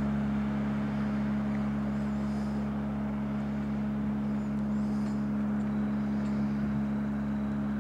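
Tiller-steered outboard motor running steadily at speed, a constant droning note as it pushes the boat through a turn.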